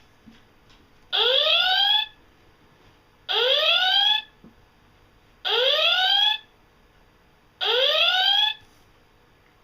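Star Trek U.S.S. Enterprise door chime playing its electronic replica of the original-series red alert klaxon: four rising whoops, each just under a second long, about two seconds apart.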